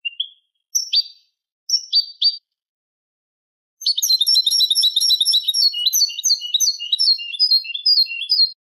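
European goldfinch singing: a few short chirps in the first two seconds, then after a pause a rapid, jingling run of twittering notes lasting about four and a half seconds.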